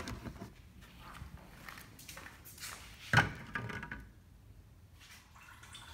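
Faint handling noises with a single short, sharp knock about three seconds in.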